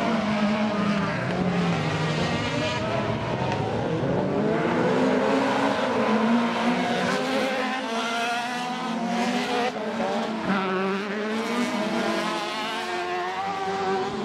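Several autocross buggy engines racing past on a dirt track, their pitches rising and falling and overlapping as the drivers accelerate and lift through the bend.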